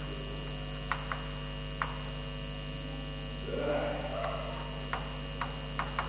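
Chalk writing on a blackboard: scattered short taps and clicks as the chalk strikes and lifts off the board, over a steady electrical hum.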